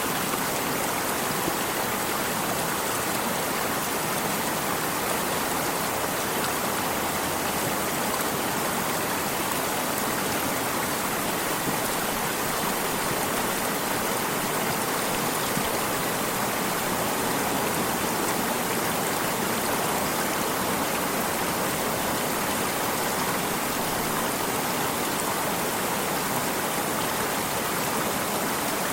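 Steady rushing of flowing water in a stream, an even noise that does not change.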